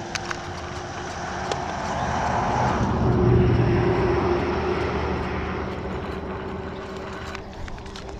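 A motor vehicle passing by, its engine and road noise swelling to a peak about three seconds in and then slowly fading away.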